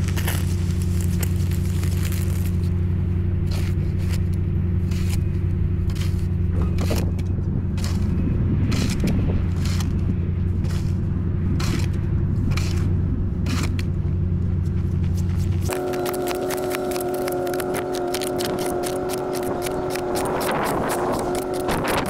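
Snow shovel blade scraping snow off an icy driveway, stroke after stroke, the strokes coming faster near the end. Underneath runs a steady low drone whose tones switch suddenly to a higher set about three-quarters of the way through.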